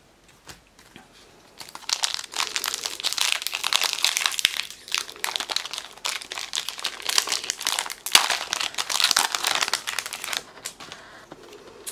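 Foil wrapper of a Magic: The Gathering Mystery Booster pack crinkling as it is opened by hand, starting about two seconds in and stopping near the end.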